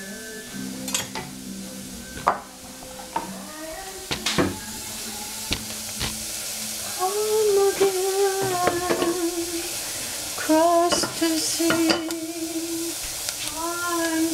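Strips of bell pepper frying in a stainless steel saucepan, sizzling with a high hiss that grows in the second half, with scattered sharp clicks and knocks against the pan. Music plays underneath.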